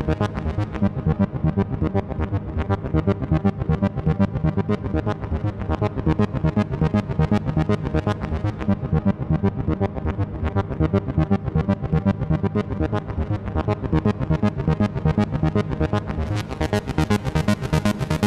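Electronic keyboard music: quick, evenly repeated synthesizer and piano notes over a steady low bass line, with a bright high shimmer joining near the end.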